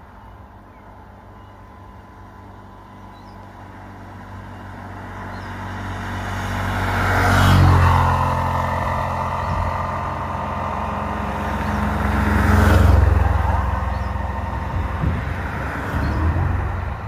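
Road vehicles passing close by, one after another: engine hum and tyre noise swell to a peak about seven seconds in and again about thirteen seconds in, then fade away.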